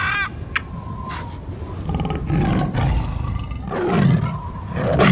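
Recorded tiger roars as a logo sound effect: rough, heavy roars around two, four and five seconds in. A brief high, chirping call comes at the very start.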